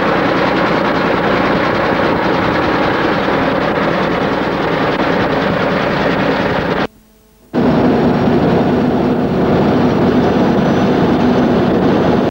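A road train's Cummins diesel running at road speed under heavy wind noise. The sound cuts out for under a second about seven seconds in, then resumes.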